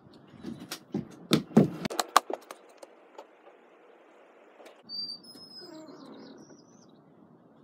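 Rubber boots thudding quickly down wooden porch steps for about two seconds, then quiet outdoor background with faint bird chirping about five seconds in.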